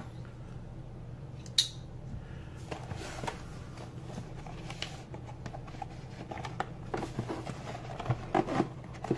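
A cardboard box being cut open with a knife and handled: short scraping and slicing sounds of the blade through packing tape, with cardboard rubbing and tapping. There is a sharp click about a second and a half in, and the cardboard sounds cluster near the end, over a low steady hum.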